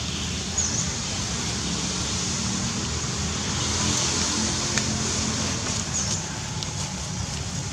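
Steady outdoor background noise, a low rumble with a hiss over it, with two faint short high chirps about half a second and six seconds in.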